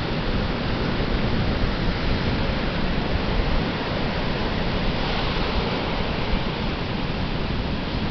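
Atlantic Ocean surf washing onto the beach: a continuous rushing wash with no breaks, swelling slightly about five seconds in.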